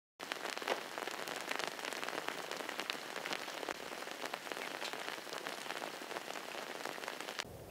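A light rain shower: a steady patter with many separate raindrops ticking close by. It stops suddenly near the end.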